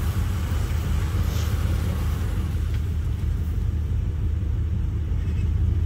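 Vehicle engine running steadily, a low even rumble.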